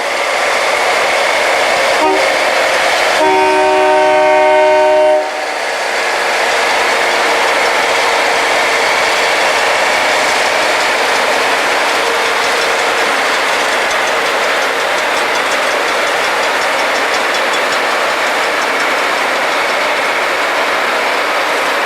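Rail grinding train grinding the railhead as it passes, a loud steady hissing grind of many grinding wheels on steel rail. A train horn sounds one chord-like blast for about two seconds, a few seconds in.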